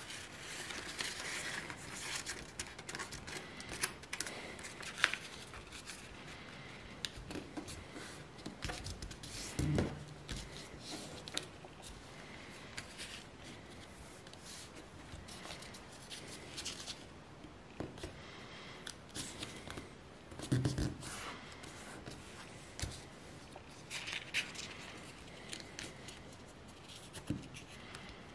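A 15 cm square sheet of paper crinkling and rustling as it is folded by hand into an origami crane, with short scraping sounds as creases are pressed flat and a few dull knocks against the mat.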